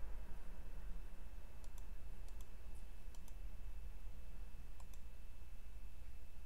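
A few faint, sharp computer mouse clicks, spread out, over a steady low hum with a thin high whine.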